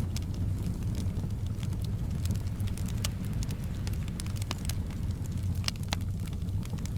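Wood fire in a fireplace crackling, with irregular sharp pops and snaps scattered through it over a steady low rumble.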